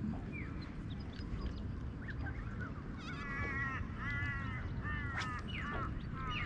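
A bird calling four times in quick succession from about halfway through, each call a short wavering honk-like note, over a steady low rumble.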